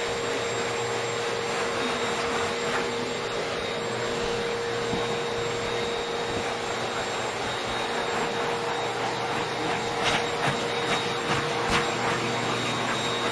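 Electric appliance motor running steadily, a constant whirring with a steady whine and low hum, as from a vacuum cleaner or blower. A few light clicks and rubbing sounds come in about ten seconds in.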